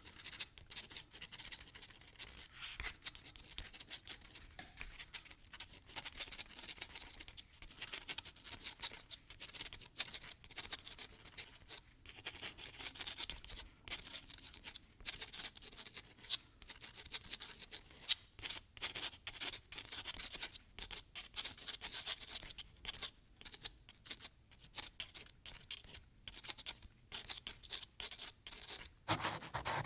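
Close-up ASMR scratching and tapping: a steady, irregular run of crisp small clicks and scratchy rustles.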